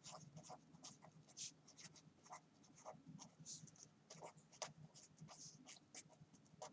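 Pen scratching on paper as words are handwritten: a faint run of short, irregular strokes.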